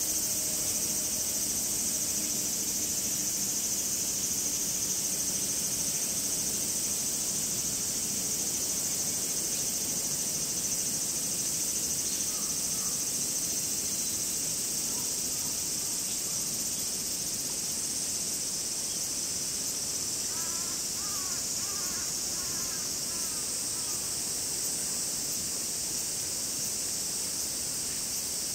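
Cicadas calling in a steady, high-pitched chorus after rain. Near the end a crow caws a few times.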